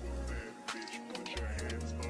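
Hip-hop style background music with heavy held bass notes and sharp drum hits.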